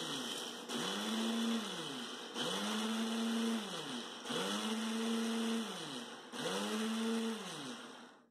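Kitchen mixer grinder run in short pulses of about two seconds each, the motor rising to speed and winding down every time. This is roasted peanuts being ground only to a medium-coarse powder, not fine.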